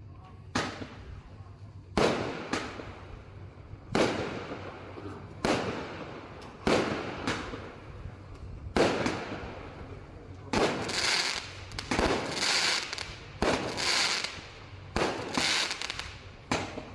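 A 25-shot, 20 mm firework cake firing, one sharp shot after another, roughly one every second or so. From about ten seconds in, each shot is followed by a longer noisy tail.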